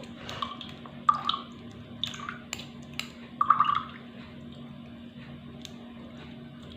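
Grated onion juice dripping through a kitchen strainer: a few scattered drips and small splashes over the first four seconds, then only a faint steady hum.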